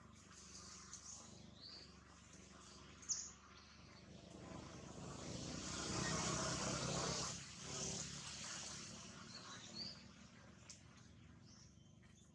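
Birds chirping now and then, short rising chirps, over a quiet outdoor background. A rush of noise swells and fades in the middle, loudest about six to seven seconds in: a vehicle passing.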